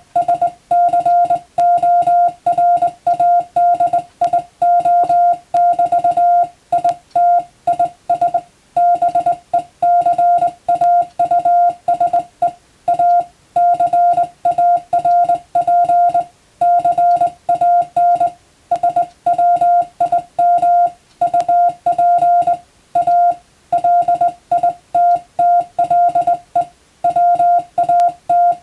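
Morse code (CW) signal: a single steady mid-pitched beep keyed on and off in dots and dashes at a brisk pace, with short gaps between letters and words. It is the kind of signal sent for radiotelegraph receiving practice.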